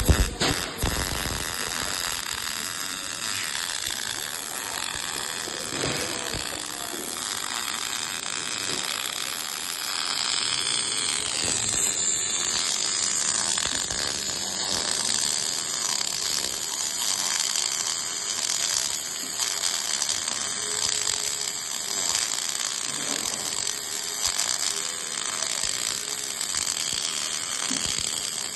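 MIG welding arc crackling and sizzling steadily as a bead is laid.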